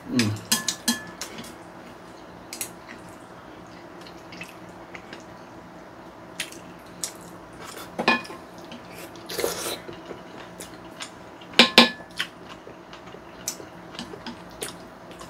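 Chopsticks clicking and scraping against bowls and plates as noodles are picked up. There are scattered light clicks, with a few louder clinks and scrapes about eight, nine and a half and twelve seconds in.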